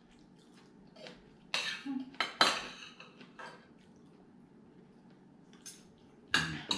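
Metal fork and spoon scraping and clinking against ceramic dinner plates in a handful of separate strokes. The loudest come about two and a half seconds in.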